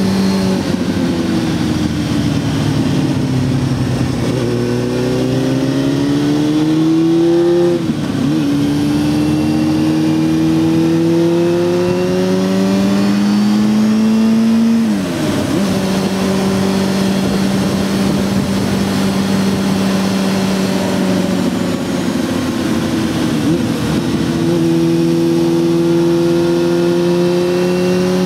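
Honda Hornet 600's inline-four engine heard from the rider's seat while riding: the revs fall, then climb, dip briefly twice, about 8 and 15 seconds in, hold fairly steady, and rise again near the end.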